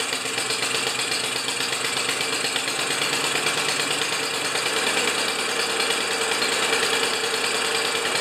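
Small Honda four-stroke engine on a Lawn-Boy push mower running steadily after a pull start. It is being restarted warm, the condition in which it has been stalling and refusing to restart.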